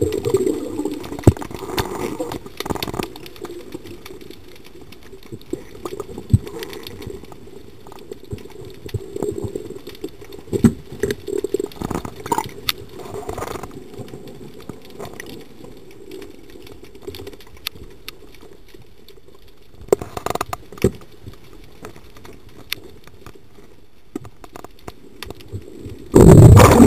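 Muffled underwater noise picked up through a camera's waterproof housing, with scattered clicks and knocks. About a second before the end a much louder, dense rushing rumble starts.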